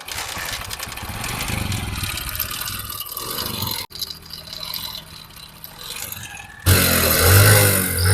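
Motorcycle engine running with a noisy mechanical clatter, breaking off abruptly about four seconds in, then revving up loudly near the end, the pitch rising and falling.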